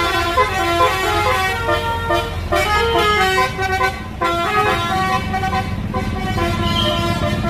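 Bus telolet horn (Basuri type) playing a fast tune of short stepped notes, over the low running of the bus engine as the coach pulls away.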